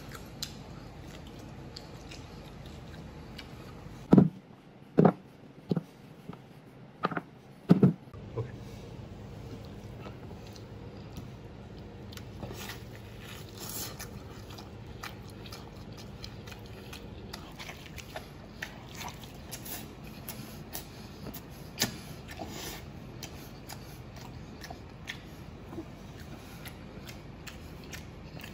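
A man chewing and gnawing braised pork knuckle held in his hands, with wet mouth and eating sounds. A cluster of five or six loud, short mouth sounds comes between about four and eight seconds in, followed by softer clicks of chewing.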